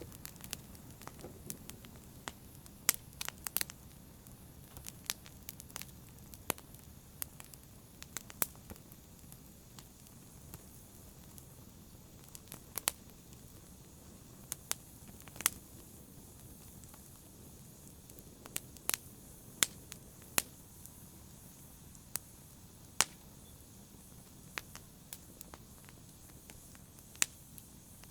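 Wood fire burning in a fireplace, with irregular sharp crackles and pops over a soft low hiss.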